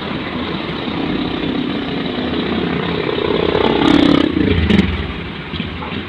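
Steady street traffic, with one motor vehicle passing close: it swells about three seconds in and falls in pitch as it goes by. Two sharp clacks come at its loudest.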